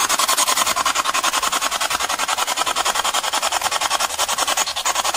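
Electronic static hiss, pulsing fast and evenly.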